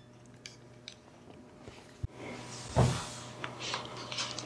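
Handling noise as DJI FPV goggles are lifted and pulled onto the head: a single louder soft thump or rustle about three seconds in, then small rustles and clicks of the goggle body and head strap.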